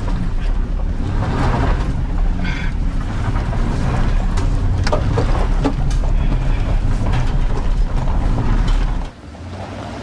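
Truck running with a low rumble under rattling and clanking, cutting off sharply about nine seconds in.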